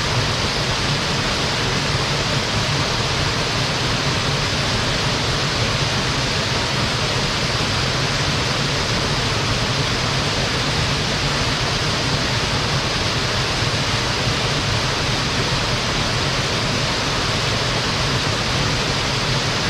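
Small mountain waterfall falling into a rocky gorge stream: a steady, unbroken rush of water.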